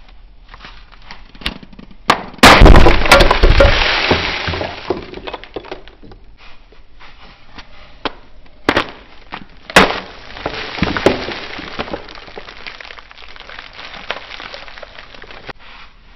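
A block of dyed gym chalk packed with glitter is crushed between the hands. It breaks with a sudden loud crack about two and a half seconds in, then crumbles with a gritty rustle that fades over a couple of seconds. Later come two sharp cracks and a second spell of crumbling.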